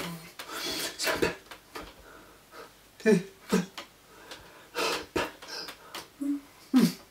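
Breathy mouth sounds, puffs of air and short bursts of voice from a person signing in sign language, with a few sharp clicks and taps as the hands meet.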